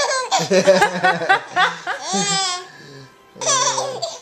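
A young child laughing in quick, high-pitched bursts of giggles, with an adult laughing along at a lower pitch. The laughter comes as a reaction to a man's hiccups.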